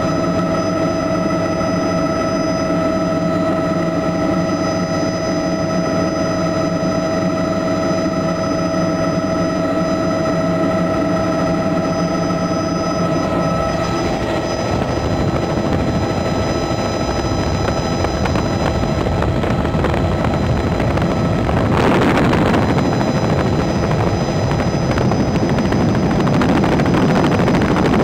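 Helicopter heard from inside the cabin: steady loud engine and rotor noise with high steady whines. About halfway through some of the whine tones drop away, and a little past two-thirds a rush of noise comes in and it grows slightly louder.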